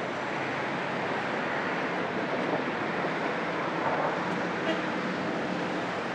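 Steady outdoor wash of passing road traffic mixed with sea surf: an even rushing noise with no distinct events.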